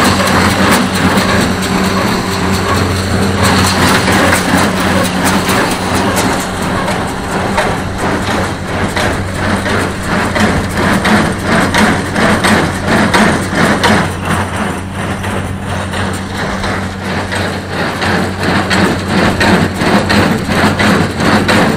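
An Oliver small square baler running off a tractor, taking in loose hay: the pickup and plunger clatter rapidly over the steady drone of the tractor engine.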